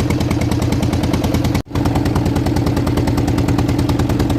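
Fishing boat's engine running under way with a fast, even put-put beat and a steady low hum. There is a momentary gap in the sound about a second and a half in.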